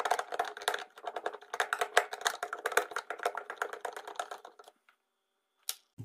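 Screwdriver driving a screw into the plastic base of a Miyako blender: rapid dry clicking that stops about four and a half seconds in, with one more click near the end.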